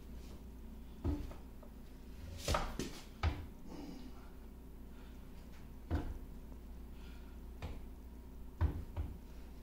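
Irregular heavy metal clunks and knocks from a 1950 LeBlond Regal lathe's carriage and apron being worked by hand, about half a dozen over a low steady hum. The loudest comes about two and a half seconds in, and two come close together near the end.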